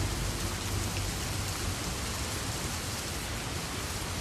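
Steady rain falling, an even hiss with no single drops standing out. A low musical tone fades out in the first second or so.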